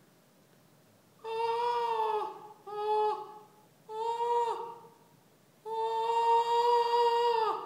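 A woman's voice sounding four sustained open vowel tones at a steady pitch, each dropping away at its end, the last one the longest at about two seconds: a vocal exercise.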